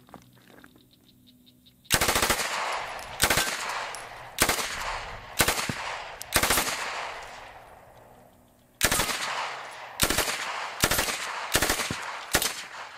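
MK760 9mm submachine gun firing ten short full-auto bursts, roughly a second apart, with a pause of about two seconds after the fifth. Each burst trails off in an echo.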